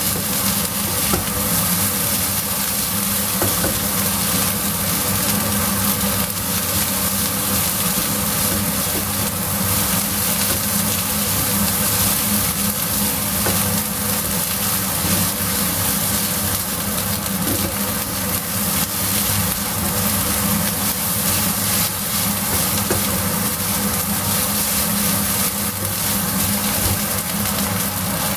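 Beef fried rice sizzling in a nonstick wok as a silicone spatula stirs and scrapes it. A steady low hum runs underneath.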